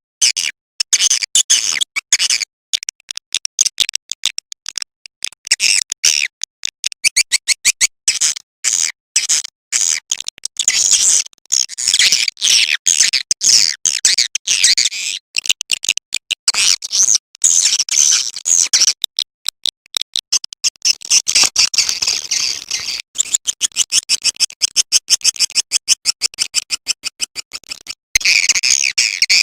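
Swiftlet call recording: a dense, unbroken stream of rapid high-pitched chirps and twitters, the lure call played to attract swiftlets to nest.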